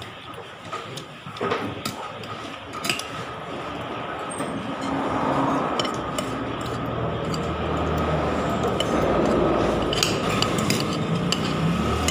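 A metal spoon clinks and scrapes against a dinner plate in scattered taps while someone eats rice and fried chicken. Behind it, a low background rumble swells up from about halfway through.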